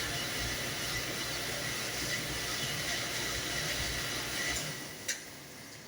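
Commercial dishwasher running: a steady hiss of spraying water over a low hum that drops away about four and a half seconds in, followed by a single click.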